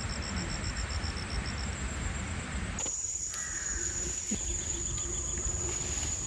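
Insects chirping: a rhythmic high-pitched pulse of about five chirps a second, which gives way about three seconds in to a steady high insect trill.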